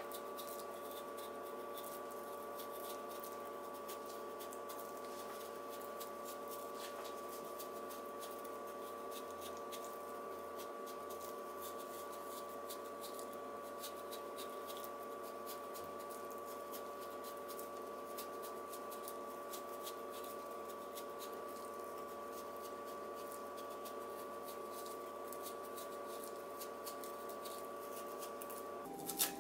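Faint, fine ticking of a freshly sharpened Murray Carter custom yanagiba shaving a daikon radish into a thin continuous sheet (katsuramuki), over a steady hum of several tones. Just before the end the hum shifts in pitch and there is one sharp knock.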